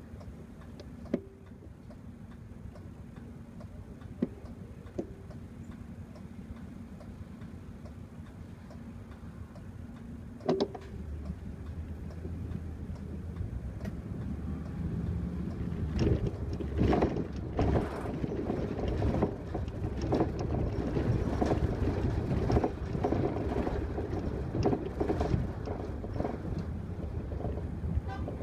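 Cabin sound of a Mercedes city bus: the engine idles with a steady hum and a few sharp clicks, then about ten seconds in the bus pulls away and the engine and road noise rise, with many short knocks and rattles from about halfway on.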